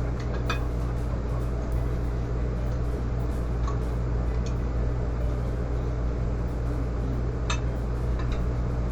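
Steady low mechanical hum with a few faint clicks scattered through it.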